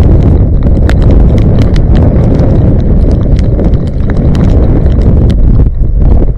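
Strong gusting wind buffeting the microphone in a loud, continuous low rumble, with the footsteps of a person walking over concrete paving blocks and then onto a dirt path as sharp clicks a couple of times a second.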